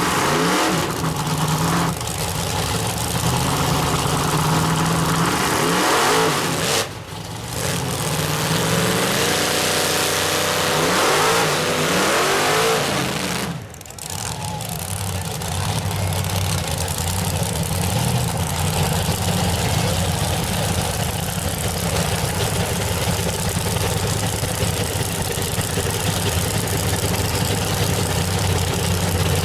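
Mud truck engines revving, their pitch sweeping up and down several times, then running on steadily under a wash of noise. Voices in the background.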